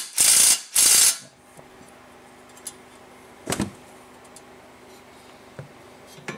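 Impact wrench run in quick loud bursts, tightening the castle nut on a new outer tie rod end's ball stud; it stops about a second in. A single metallic clink follows a couple of seconds later.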